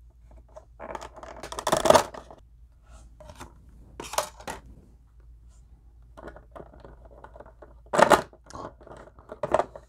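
Plastic action-figure packaging being handled: a clear plastic blister and a moulded plastic tray crinkling, rustling and scraping in short bursts as the figure is worked out of its tray. The loudest burst comes about two seconds in, with others at about four seconds and near the end.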